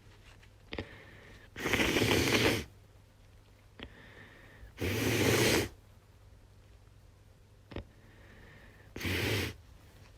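A woman with a head cold sneezing three times, a few seconds apart. Each sneeze lasts about a second and comes about a second after a short, sharp catch of breath.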